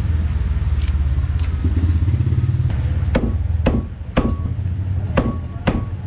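A cleaver chopping meat on a block, sharp strikes about two a second with a short metallic ring, starting about three seconds in. Under them runs a steady low engine rumble.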